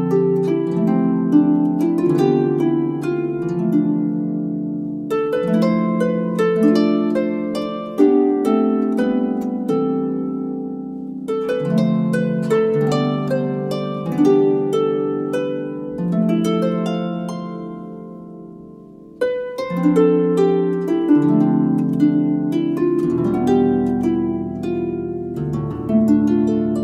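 Solo harp music: plucked strings ringing and overlapping in flowing phrases. The playing fades and thins, then a new phrase starts sharply about nineteen seconds in.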